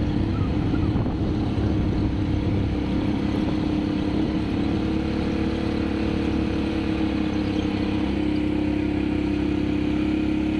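Quad-bike (ATV) engines running steadily under way on a sandy trail, with a constant low rumble. The engine note strengthens and rises slightly about eight seconds in.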